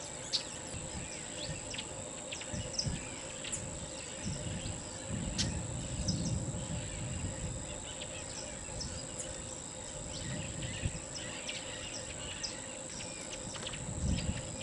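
Outdoor ambience at the edge of a lake: a steady high-pitched insect drone with scattered short bird chirps over it. Low rumbles come and go, loudest in the middle and near the end.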